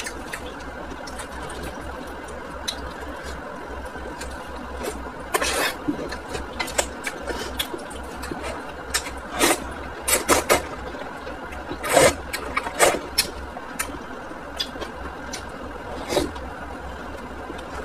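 Close-miked eating sounds: hot and sour noodles being slurped and chewed, with several short, sharp slurps and mouth noises, the loudest a little past the middle. A steady low hum runs underneath.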